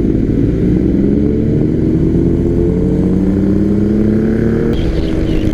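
Motorcycle engine running under way, its pitch rising steadily as it accelerates, then falling back near the end.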